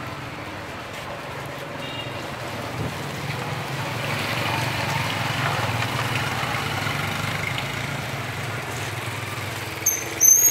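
Street traffic with motorbikes running steadily, under the sizzle of rice paper frying in a pan on a portable gas stove. Near the end comes a short, sharp, high squeak as the wooden spatula scrapes the fried rice paper out of the pan onto a foam box.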